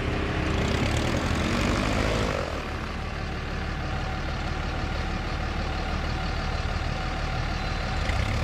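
SubSonex mini jet's turbojet engine running at low power on its landing approach: a steady drone, louder for the first two seconds and then easing off slightly.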